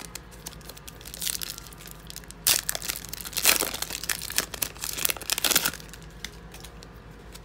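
Foil wrapper of a 2016 Donruss football card pack being torn open and crinkled in the hands. It crackles lightly about a second in, then loudly and densely for about three seconds in the middle.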